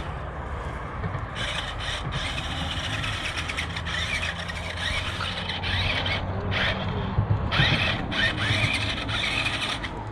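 Small electric motors and gear drive of a JJRC Q137 1/16-scale 8x8 skid-steer RC truck whining in several bursts of throttle, starting and stopping as it is driven.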